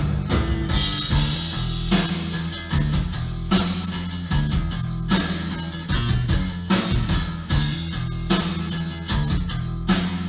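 Rock music with electric guitar, bass and drum kit, with strong bass and a steady beat of drum hits, played back through Rogers LS7t loudspeakers with a subwoofer.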